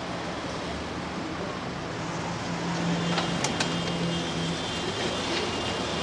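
Street traffic noise, with a car engine running steadily more strongly from a little after two seconds in, and a few light clicks around the middle.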